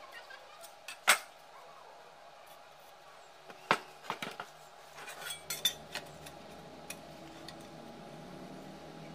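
A steel rule and welded steel parts clinking and knocking as they are handled and set down on a wooden bench: one sharp clink about a second in, then a cluster of lighter clinks and taps between about four and six seconds, over a faint steady hum.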